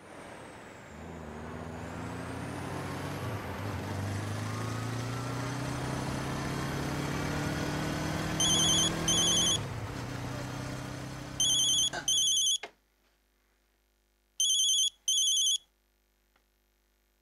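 Street traffic with a motorcycle engine approaching, its pitch rising, until the traffic cuts off suddenly a little past halfway. From about halfway, a telephone ringtone sounds in pairs of rings repeating about every three seconds.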